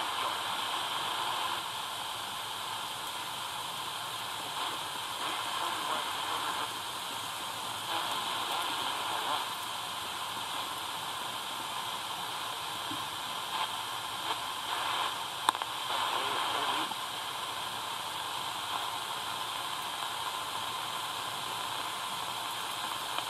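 Static hissing steadily from a Tecsun DR-920C portable radio's speaker as it is tuned up the medium wave band, swelling briefly a few times. The reception is poor.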